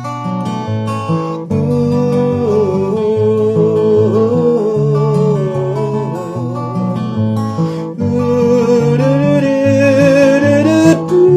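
All-solid steel-string acoustic guitar playing an instrumental passage, with bass notes moving under the chords and a sustained melody line with vibrato over it.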